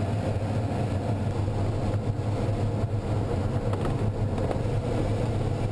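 Steady rush of airflow around an ASW-19B glider in fast flight, heard from inside the cockpit, with a constant low rumble beneath the hiss.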